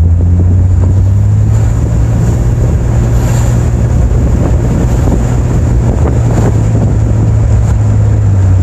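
Steady driving noise inside a 1997 Jeep Cherokee's cab: a low engine and road drone with wind rushing in at the microphone.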